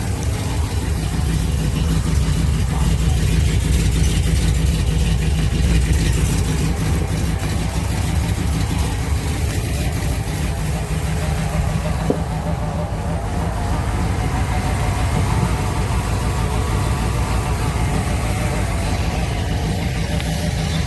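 1965 Ford Thunderbird's V8 engine idling steadily.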